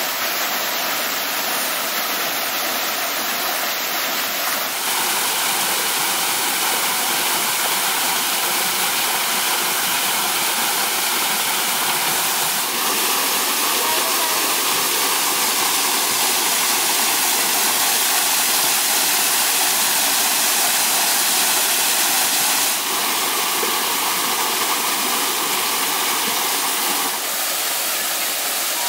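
Small waterfall pouring down a stone wall into a koi pond: a continuous rushing splash. Its tone shifts slightly a few times.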